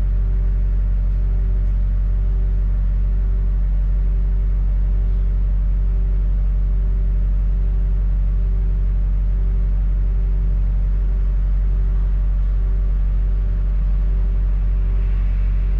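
Double-decker bus engine running steadily, heard from inside the bus as a constant low hum. A faint tone pulses on and off about once a second above it.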